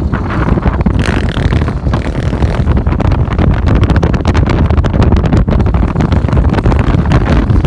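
Wind buffeting the microphone at an open window of a moving car, mixed with road and engine noise; it stays loud and rumbling throughout.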